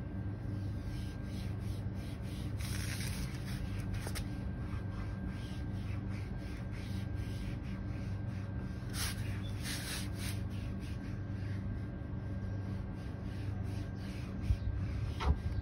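Foam applicator pad rubbed back and forth over black plastic car trim, working in a plastic restorer: a scrubbing in quick repeated strokes, with a couple of louder swipes. A steady low hum runs underneath.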